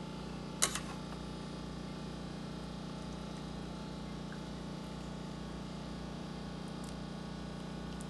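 Steady low hum with background noise, broken by one sharp click less than a second in and a couple of faint ticks near the end.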